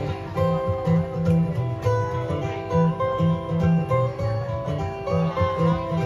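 Background music led by a plucked acoustic guitar, with a steady low line under short melodic notes.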